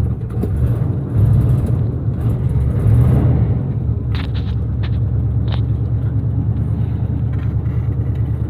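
1982 GMC C30 pickup's carbureted engine running at fast idle right after a cold start at −30 °C with no block heater: a steady low rumble that swells louder twice in the first few seconds.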